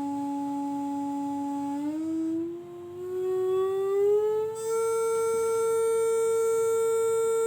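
A steady, siren-like sustained tone, held at one low pitch, then gliding smoothly up over a couple of seconds to a higher pitch and held there.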